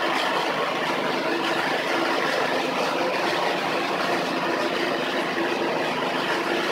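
Small petrol engine of a grass chopper idling steadily, with an even hum.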